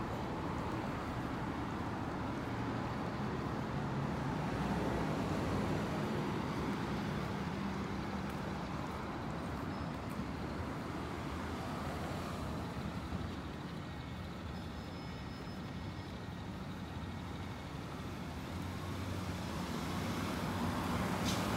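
Street traffic: car and truck engines running and tyres passing on the road alongside, a steady rumble that grows louder near the end as vehicles pull up close at the intersection.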